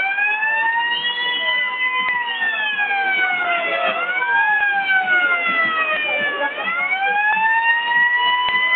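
Wailing siren, its pitch rising and falling slowly, about once every four seconds, over crowd noise. A few sharp clicks come near the end.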